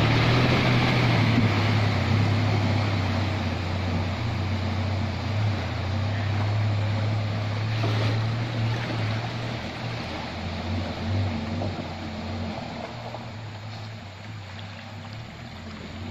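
A 4x4 SUV wading through a river crossing, its engine running while water splashes and surges around its wheels. The sound fades gradually as the vehicle pulls away upstream.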